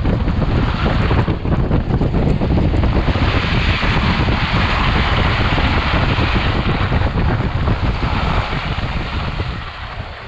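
Wind buffeting a wheel-mounted camera over the rumble and crunch of a Jeep's tyres driving on snowy off-road ground, easing off near the end.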